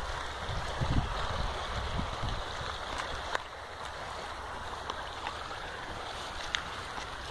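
Water lapping and washing against a concrete pier wall, with a low rumble on the microphone in the first two seconds and a few faint clicks later on.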